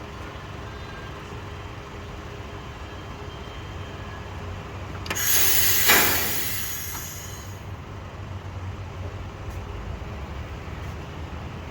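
Steady low machine hum, with a loud burst of hissing about halfway through. The hiss is pressurised air or gas escaping, starting suddenly, peaking within a second and dying away over about two seconds. This is the pressure used to leak-test a car AC line.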